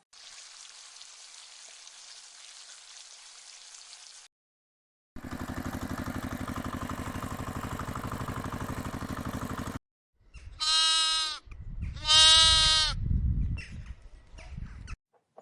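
A soft hiss, then several seconds of steady rhythmic buzzing, then two short animal calls at a steady pitch, the loudest sounds here, near the end.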